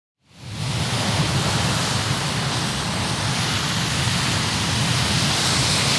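Sea surf washing onto a sandy beach: a steady rushing noise that fades in about a third of a second in and holds evenly.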